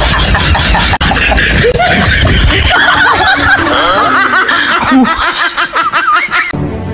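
People laughing in high, wavering voices over a loud low rumble that fades out a few seconds in.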